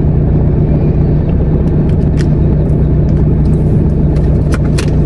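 Steady low rumble of a car engine idling, heard from inside the cabin. A few light clicks sound on top, about two seconds in and again near the end.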